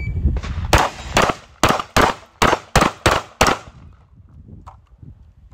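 Typhoon F12 box-fed semi-automatic 12-gauge shotgun firing eight shots in quick succession, a little under half a second apart, over about three seconds.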